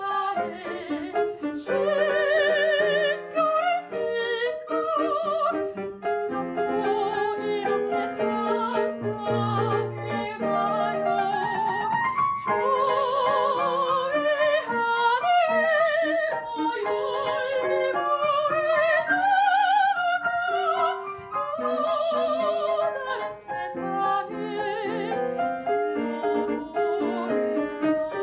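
Background music: an operatic soprano singing with wide vibrato, accompanied by piano.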